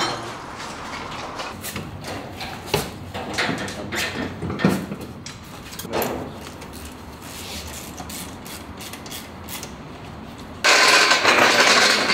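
Scattered metallic clicks and knocks of hand tools working on a steel shipping crate. Near the end a sudden, much louder steady noise starts and keeps going.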